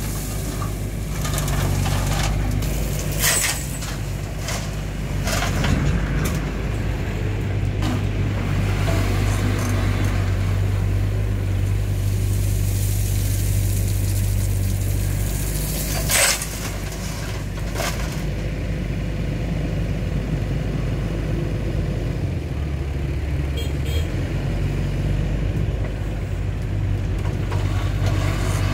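Diesel engine of a Doosan mini excavator running steadily while it loads crushed stone into a small dump truck, with sharp crashes of stone dropping into the steel truck bed a few times, the loudest about sixteen seconds in. The engine note changes briefly a little past twenty seconds.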